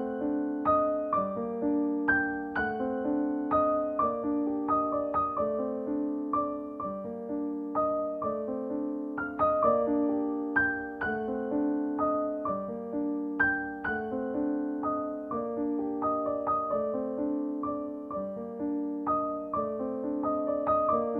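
Background music: a gentle piano melody of repeated struck notes with sustained chords.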